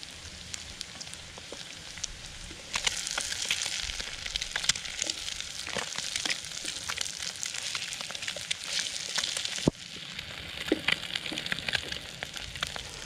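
Plant-based bacon, potatoes and eggs sizzling in a fry pan, with short clicks and scrapes as a spatula turns the food. The sizzle grows louder about three seconds in and drops back near the ten-second mark.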